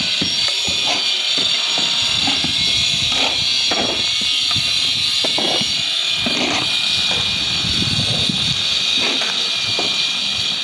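Steel shovels scraping and scooping on a concrete slab as sand and cement mortar is mixed by hand, in irregular strokes, over a steady high hiss.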